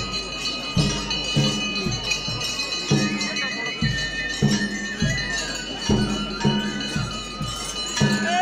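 Folk ritual music: low drum strokes, about two a second, over continuous ringing and jingling of bells, including the strings of bells worn by the dancers.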